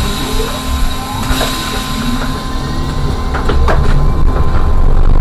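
Electric trolleybus pulling away, its traction motor giving a rising whine over a steady electrical hum, with a few sharp clicks about three and a half seconds in.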